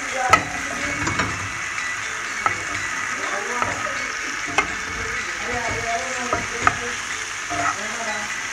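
Ackee and saltfish sizzling in a frying pan as a metal spoon stirs it, with sharp clinks of the spoon against the pan about once a second over the steady sizzle.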